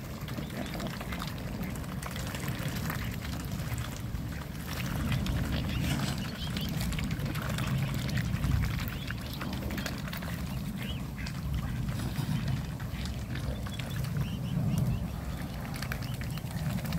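Mute swans and their cygnets feeding in shallow water, with irregular small splashes and dabbling bill sounds over a steady low rumble.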